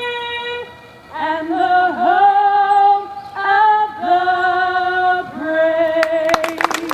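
A woman singing solo and unaccompanied, holding long notes with vibrato through several phrases and ending on a long final note. The crowd starts clapping and cheering about six seconds in, as the last note is still held.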